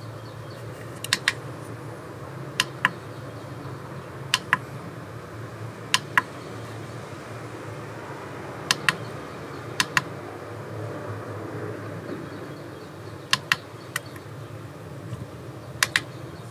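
Push buttons on an iMAX B6 balance charger clicking as they are pressed, about a dozen sharp clicks, singly or in quick pairs, over a steady low hum.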